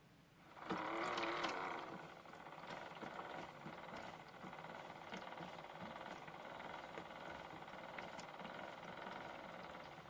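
Small electric motor of a modified toy washing machine running. It comes up louder about a second in, then settles to a steady hum.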